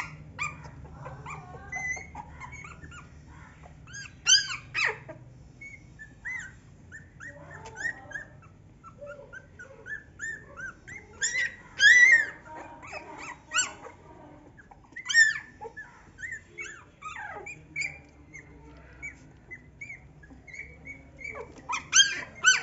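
A litter of young Labrador puppies whimpering and squeaking: many short, high-pitched cries overlapping one another, with louder yelps about four seconds in, around twelve and fifteen seconds, and again near the end.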